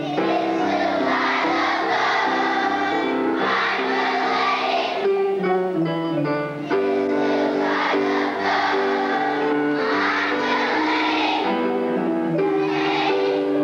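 Children's choir singing a song together, with instrumental accompaniment underneath.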